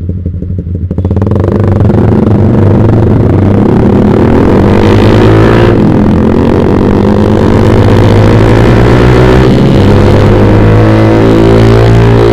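Yamaha Vixion single-cylinder motorcycle engine through a Proliner TR1 short aftermarket exhaust, accelerating hard. It gets much louder about a second in, and the pitch climbs, drops at an upshift about halfway through, climbs again, drops at a second upshift, and climbs once more.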